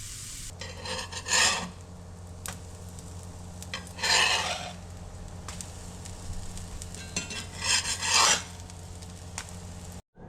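A cooking utensil scraping across a pan three times, each stroke about half a second long, over a steady low hum and a faint sizzle.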